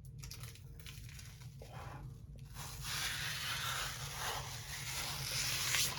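Protective plastic film being peeled off a PC case's glass side panel: a few short crackles at first, then from about two and a half seconds in a louder, steady crackling rip as the film pulls away.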